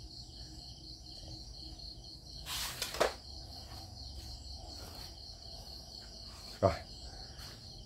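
Steady high-pitched insect chirring in the background, with a brief rustle that ends in a knock about three seconds in and a louder knock near the end.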